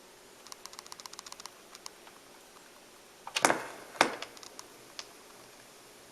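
BIC 980 belt-drive automatic turntable handled or cycling: a quick run of small clicks, then two loud knocks about half a second apart, then a few scattered ticks.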